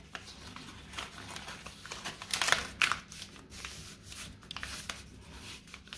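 A sheet of paper rustling and crinkling under the fingers as folded layers are tucked into a pocket and the fold is pressed flat by hand. Short, scattered scratches, loudest a little after two seconds in.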